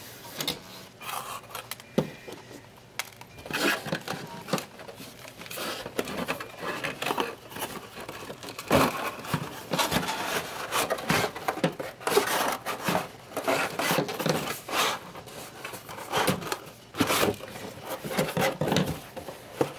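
Cardboard package inserts being handled and pushed into a cardboard box: irregular rustling with short knocks.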